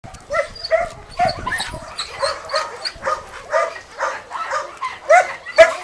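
Dog barking over and over in short, fairly high barks, about two to three a second, the loudest near the end.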